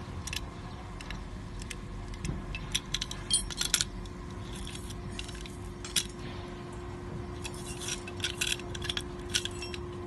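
Small metal clicks and clinks in scattered clusters as the metal parts of a glass door hinge are handled and its wires threaded through, over a steady faint hum.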